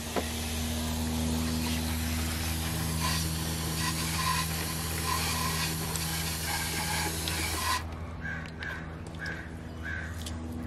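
Garden hose spray nozzle spraying water, a steady hiss that stops abruptly about eight seconds in. A steady low hum runs underneath throughout.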